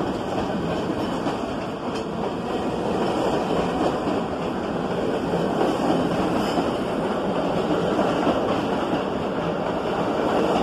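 New York City subway Q train running past along the platform: a steady rumble of steel wheels on rail that slowly grows louder.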